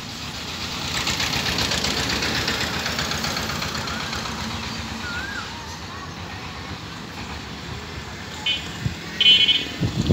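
A motor vehicle's engine noise swells about a second in and fades slowly over several seconds. A few short, rapid high beeps come near the end.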